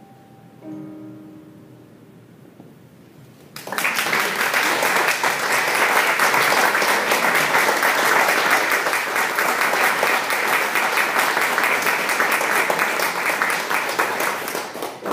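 Electronic keyboard playing the last soft, held notes of a song, then, about three and a half seconds in, an audience breaks into loud, steady applause that keeps going.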